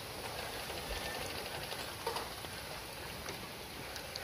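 Faint scraping and light knocks from food being prepared by hand, a pestle worked in an earthenware mortar and a knife on a wooden board, over steady outdoor background noise.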